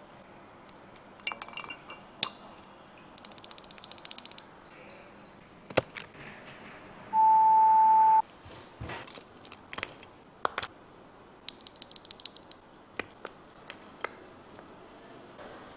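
Mechanical keyboard with TTC Speed Silver linear switches being typed on: short bursts of rapid key clicks with pauses between. Near the middle a steady beep of about a second, louder than the typing, sounds once.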